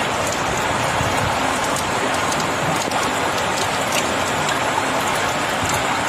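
Heavy rain falling and hitting surfaces: a steady, even hiss with scattered drop ticks.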